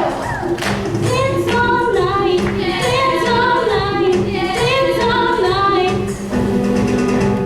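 Women's a cappella chorus singing sustained chords in close harmony, with no instruments.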